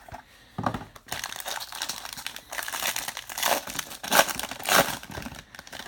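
Trading-card pack wrapper being torn open and crinkled by hand: irregular crackling and rustling that grows busier and louder in the middle, with a few sharper crinkles near the end.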